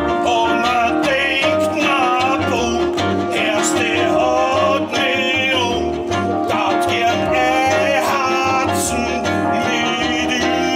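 Live Austropop band: a male singer sings into a microphone over a plucked upright double bass line and guitar.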